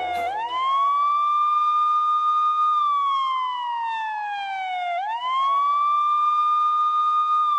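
A wailing siren. Its pitch rises quickly, holds high for about two seconds, then falls slowly, and it rises again about five seconds in.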